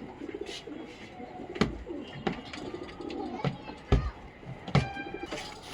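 Desi hens clucking and crooning softly, with three sharp knocks and a short, higher call near the end.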